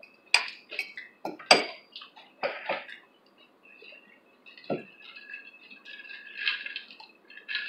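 Metal fork clinking against glass tableware: a handful of sharp clinks in the first three seconds, a single duller knock a little past the middle, then faint light clatter near the end.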